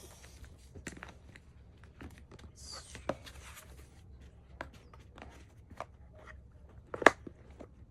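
Packaging being handled: scattered small clicks and taps as items are put back into a DVD box set, with a brief rustle about three seconds in and one sharper knock near the end.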